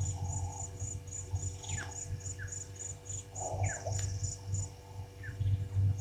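An insect trills in regular high pulses, about three a second, while a bird gives short falling whistled notes every second or so, over a low steady rumble.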